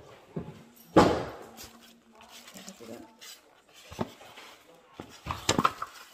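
Styrofoam packing blocks scraping and knocking against a plastic-wrapped mini sewing machine as it is pulled out of its box. There is a loud scrape about a second in, then several short knocks near the end.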